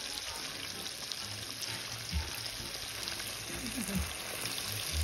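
Hot cooking oil in a cast iron skillet sizzling steadily as a piece of flour-dredged fish is laid into it to fry.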